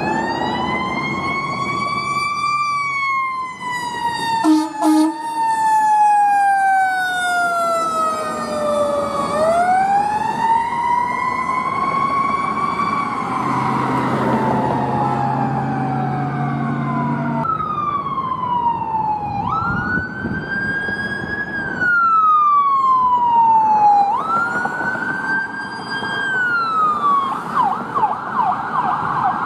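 Emergency sirens of a fire engine and an ambulance running on a call: a long wail rising and falling slowly, with a short horn blast about four seconds in and a low horn held for a few seconds around the middle. About two-thirds of the way in a second siren takes over with its own wail, switching to a fast yelp near the end.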